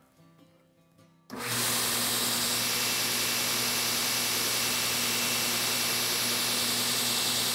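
2x72 belt grinder switched on about a second in: it starts suddenly and runs steadily, the abrasive belt hissing over its wheels above a low electric-motor hum. The belt is running true, tracking straight down the platen.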